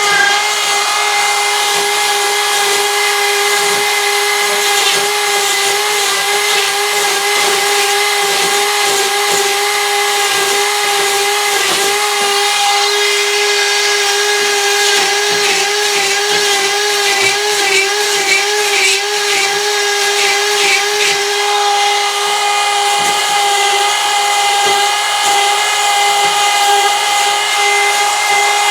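Power tool with a grinding bit running continuously at high speed, a steady whine that wavers slightly in pitch as it bites, grinding out the hole for a door knob to widen it.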